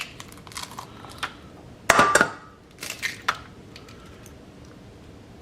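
Kitchen clatter of a dish and utensils while dog food is being prepared: scattered sharp clinks, a louder burst of clattering about two seconds in, a few more clinks, then it goes still.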